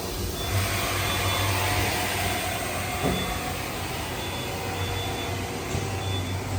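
Steady machinery noise: a low hum under a hiss, with short, high-pitched tones coming and going and a single knock about three seconds in.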